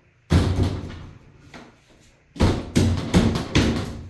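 Top board of an IKEA Pax wardrobe frame being knocked back into its side slots: one hard knock, then about a second and a half later four quick knocks in a row.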